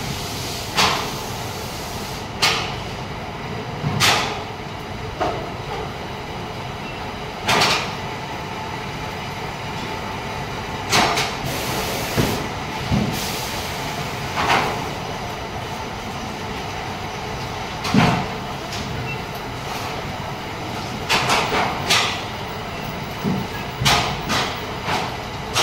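Steady factory-floor machine noise with sharp knocks and clatters every few seconds, coming more often near the end.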